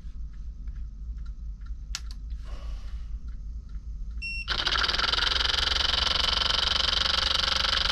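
Light handling clicks over a low hum, then a brief high tone and, about halfway through, a small 1.5–12 volt DC motor starts up and runs steadily, spinning two half-moon magnets inside a salvaged sump pump stator coil in a homemade DC generator. It runs noisy, with a steady high whir.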